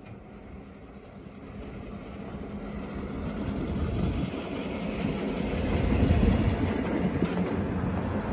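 Diesel locomotives of a CN freight train rumbling past below. The sound builds over the first six seconds as the second unit draws near and passes underneath, then holds steady.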